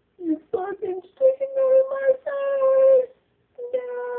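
A high voice making a few short sounds, then singing or wailing long held notes, with a brief pause before the last one.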